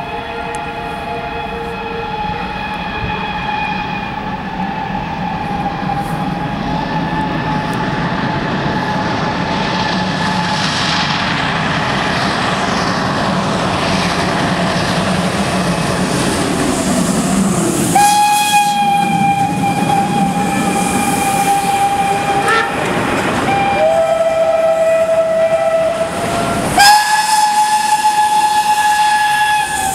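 Steam locomotives passing close by, sounding their steam whistles in long held blasts, over the rumble and chuffing of the train, which grows louder as it nears. From about eighteen seconds in the whistling is loudest: a long blast, then a lower-pitched blast, then a higher one again near the end.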